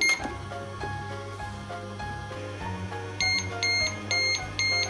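A simple electronic melody plays, then about three seconds in a toy microwave starts beeping: short, high beeps about two a second, the signal that its cooking cycle is done.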